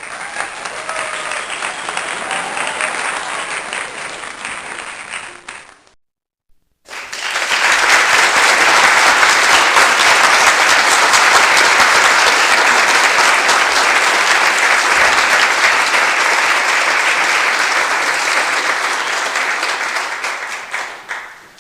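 Crowd applause in two clips: about six seconds of clapping that cuts off suddenly, then after a short gap a louder, denser round of applause that builds quickly and fades out near the end.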